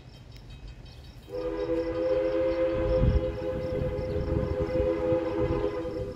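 A locomotive whistle sounds one long blast, a chord of several notes held steady for nearly five seconds, starting about a second in. A low rumble runs underneath it.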